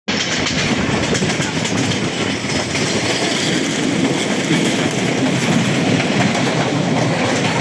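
A train running along the rails, giving a steady, dense rumble of wheels on track.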